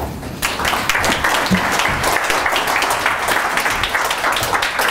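Audience applause: a large crowd clapping together, loud and dense.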